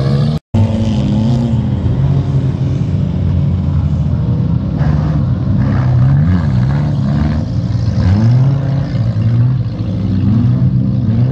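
Several small hatchback autocross cars' engines running and revving together on a muddy dirt track, their pitch rising and falling as they accelerate and ease off. The sound cuts out for a moment about half a second in.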